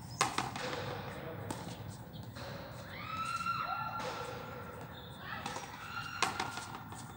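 A hard frontenis ball knocking a few times on the concrete court, with people's voices calling between the knocks.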